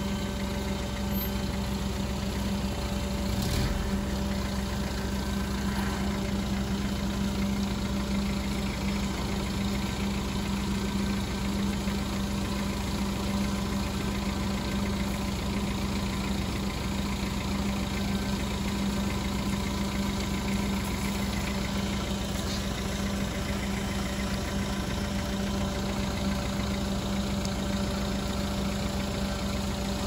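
Livestock truck's engine running steadily as the truck is moved up to the loading ramp, a constant low hum with no change in speed.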